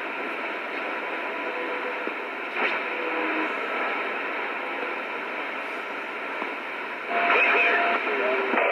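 CB radio receiver hissing with band static between transmissions, faint steady whistles from distant carriers mixed in. About seven seconds in a stronger signal breaks through the hiss.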